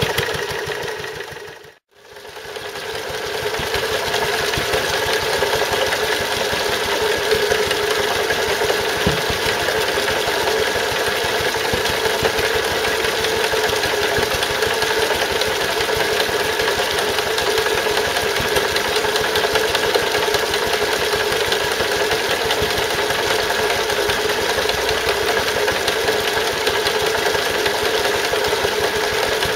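Wolseley WD2 stationary engine running steadily, belt-driving a Stuart Turner water pump, with a fast, even knocking tick and water pouring from the pump's outlet. The pump's remaining knock is of uncertain cause, which the owner wonders may be a valve. The sound fades out and back in about two seconds in.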